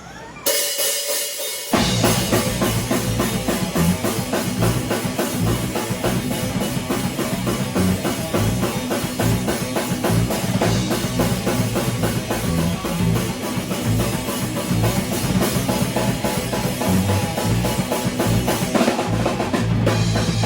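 A band playing live in rehearsal, led by a drum kit with kick and snare keeping a steady driving beat. A short lead-in starts about half a second in, and the full band comes in loud at about two seconds.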